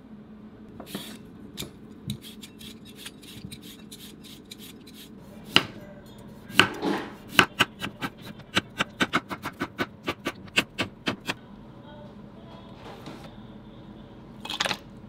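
Kitchenware knocking: a couple of loud knocks about six seconds in, then a quick, regular run of sharp knocks, about three a second, for some four seconds.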